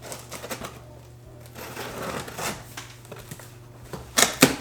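Cardboard shipping box being opened and its packing handled: irregular rustling, scraping and crinkling, with two or three sharp loud snaps about four seconds in.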